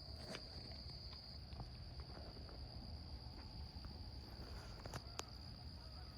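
Faint steady chorus of crickets, one continuous high trill, with a few soft clicks near the start and about five seconds in.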